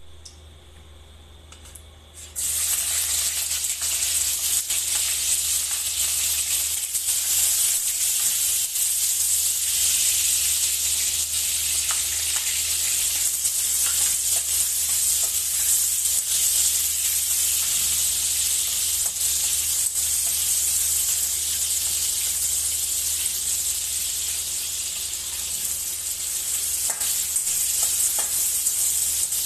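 Garlic frying in hot oil in a wok: a steady sizzle that starts suddenly about two seconds in, when the garlic goes into the pan. A metal spatula stirs and scrapes through it.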